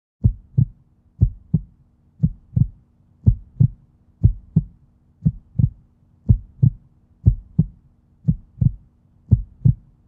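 Heartbeat sound effect: slow double thumps (lub-dub), about one beat a second, ten beats in all.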